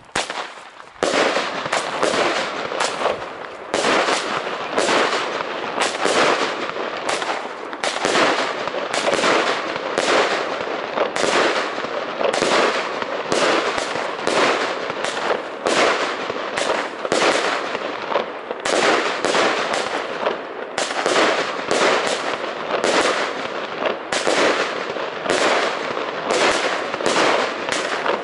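Jorge Thunder King JW900 firework battery firing, starting about a second in: a fast, unbroken run of sharp bangs, roughly three a second, as its shots go off overhead.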